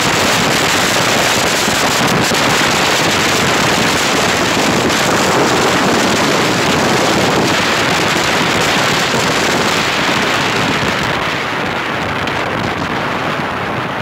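Wind rushing over the microphone of a moving vehicle on the road, a loud steady roar of noise with road and vehicle noise underneath; it turns a little duller in the last few seconds.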